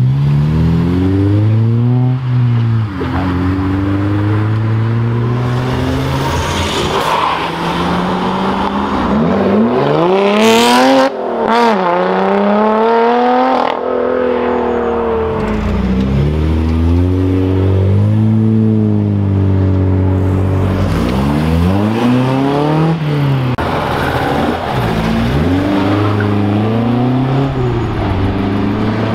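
Car engines revving hard as cars accelerate away one after another. The engine note climbs and drops back repeatedly through gear changes, with the sharpest climb around ten seconds in before it falls away.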